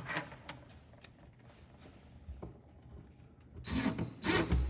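Wood rubbing and scraping during cabinet work: a light knock at the start, then two short, loud scrapes near the end.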